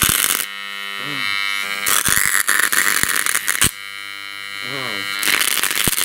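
A microwave-oven transformer rewound with a few turns of thick wire for high current, buzzing as its leads arc against a tin can and burn through the lid. Spells of loud crackling and sputtering with sharp snaps alternate with stretches where the steady electrical buzz stands out.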